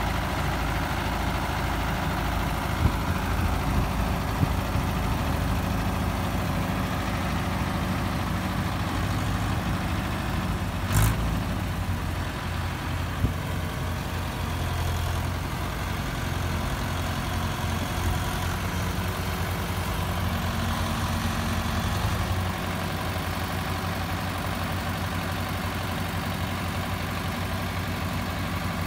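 Diesel engines of a tractor and a backhoe loader running at idle, a steady low rumble, with a sharp knock about 11 seconds in and a few lighter clicks.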